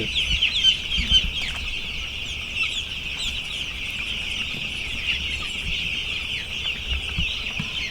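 A large flock of young broiler chicks peeping continuously: many overlapping short, high-pitched chirps.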